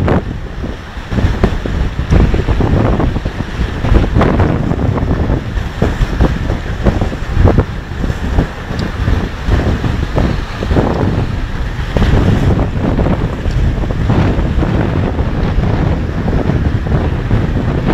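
Wind buffeting the microphone over rough, storm-swollen water, with waves surging against a seawall and splashing over it in irregular bursts every second or two.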